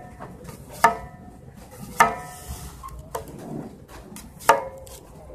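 A stainless steel chef knife slicing through an apple and knocking down onto the paper plate and counter, four times about a second apart. Each knock is followed by a short ring.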